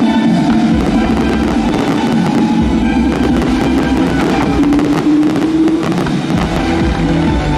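Music playing with fireworks bursting over it: many sharp pops and crackles from shells exploding, thickening from about three seconds in.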